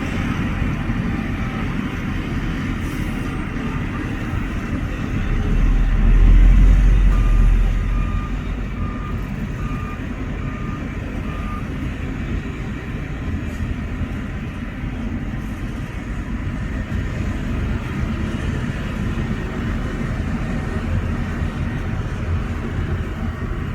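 Heavy diesel earthmoving machinery running steadily, the engine swelling louder for a couple of seconds about six seconds in. A reversing alarm beeps about six times, roughly twice a second, just after the swell.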